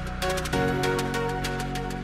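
Background music: sustained chords under a steady beat of fast ticks, with a chord change about half a second in.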